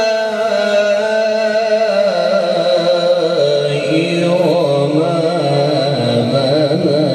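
A man's melodic Quran recitation (tilawat) through a microphone: one long unbroken phrase, held on a steady note, stepping down about two seconds in, then turning to quick wavering ornaments.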